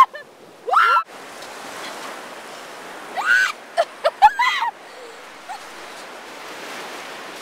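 Steady wash of surf on the beach. It is broken by several short, loud rising-and-falling cries: one about a second in, then a cluster from about three to four and a half seconds in.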